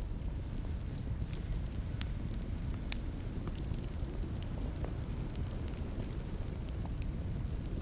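Wood fire crackling in a fireplace: a steady low rumble with scattered sharp pops, the loudest about two and three seconds in.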